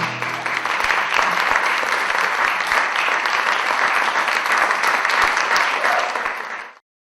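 Audience applauding and clapping after the song ends, the last guitar chord dying away at the start; the applause cuts off abruptly near the end.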